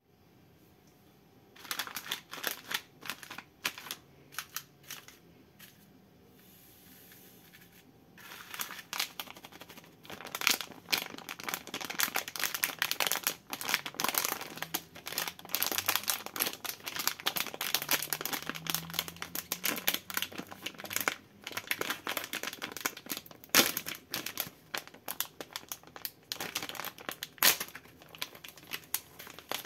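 Plastic candy bag of marshmallows crinkling as hands squeeze and handle it, then tear it open. Crinkling comes in short spurts after a quiet first moment, pauses, and from about eight seconds in runs on as dense crackling.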